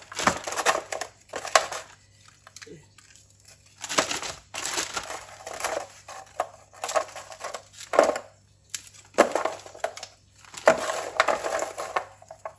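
A plastic zip-lock bag crinkling in repeated bursts as handfuls of frozen, flour-coated potato sticks are dropped into it, with short pauses between handfuls.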